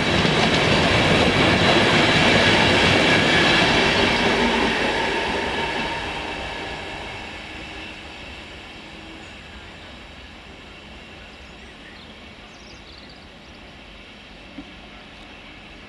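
InterCity 225 Mark 4 coaches passing close at speed: a loud rush of wheel and rail noise with a steady high ringing. It fades away over a few seconds to a faint steady background, with a single short click near the end.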